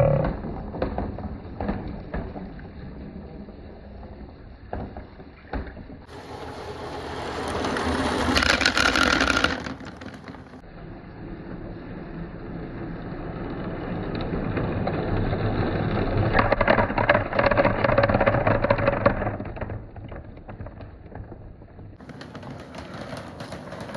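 Marbles rolling along a handmade water marble run, a steady rolling rumble with running water that swells twice and fades.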